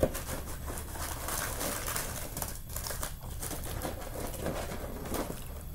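A crumpled paper food wrapper crinkling and rustling in a hand, a run of small irregular crackles.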